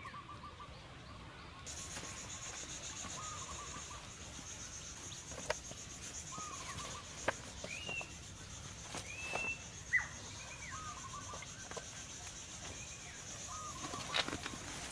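Forest ambience: birds repeating short, arching call notes every second or two over a steady high insect buzz that starts about two seconds in, with a few sharp clicks scattered through.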